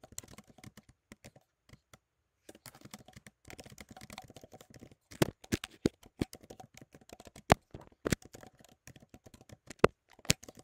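Typing on a computer keyboard: a run of quick, irregular key clicks with short pauses, a few keystrokes much louder than the rest.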